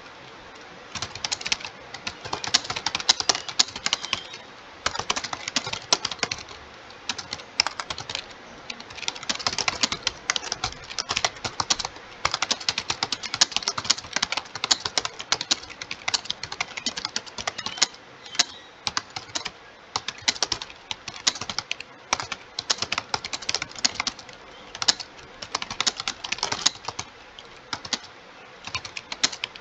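Fast touch-typing on a computer keyboard: rapid key clicks in quick runs, broken by short pauses between words and phrases.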